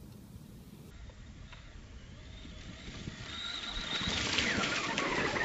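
Brushless electric motor of a 1:10 Thunder Tiger Sparrowhawk XXT truggy whining as it drives across grass, growing steadily louder as it approaches, with its tyres churning up the turf.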